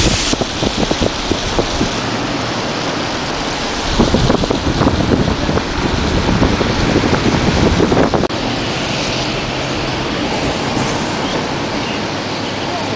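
Road and wind noise from a moving truck, with wind buffeting the microphone. There is a louder rumbling, rattling stretch from about 4 to 8 seconds in.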